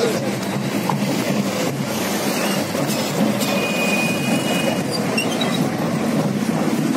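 Steady rumbling noise of a moving vehicle, with a thin high whine for about a second in the middle.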